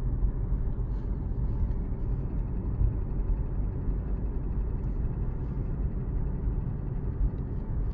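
Alfa Romeo Giulia's 2.2 diesel engine idling cold, with a fast, regular clacking ticking over the engine note. The owner is trying to identify this knocking.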